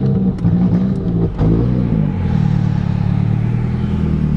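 Nissan 240SX's engine heard from inside the cabin: its revs waver and fall over the first two seconds, then it settles into steady running.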